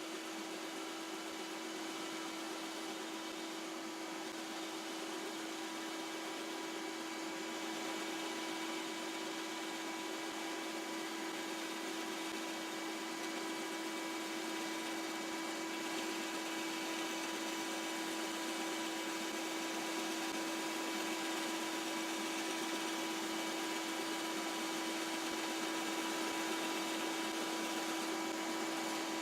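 Shop vac and bandsaw running steadily together while the bandsaw cuts through half-inch MDF, a constant whine over motor noise.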